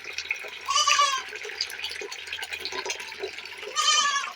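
A goat bleating twice, each a wavering cry about half a second long, one about a second in and one near the end.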